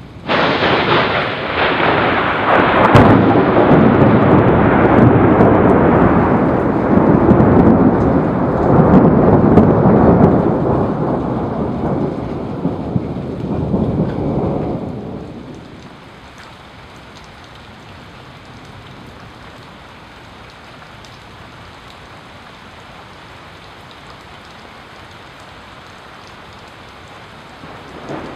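Close thunder: a sudden loud clap just after the start, a sharp crack about three seconds in, then a long roll that fades out around fifteen seconds in. Steady rain continues underneath and is left on its own afterwards.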